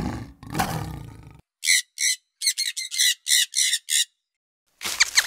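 A lion growling. Then about nine short, shrill squawks from rainbow lorikeets. Near the end comes a quick run of falling, whistled bird chirps.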